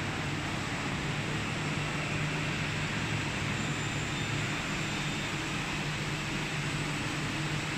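Steady machine hum: a continuous low drone under an even hiss from powered-up CNC lathes and factory machinery, with no cutting or distinct mechanical events.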